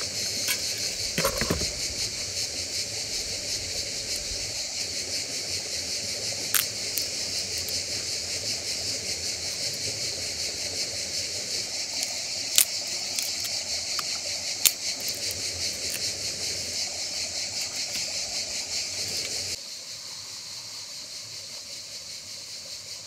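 Steady high-pitched buzzing of an insect chorus on a summer riverbank, with a few sharp snaps and clicks as sticks and the metal hobo stove are handled. The buzzing drops quieter for the last few seconds.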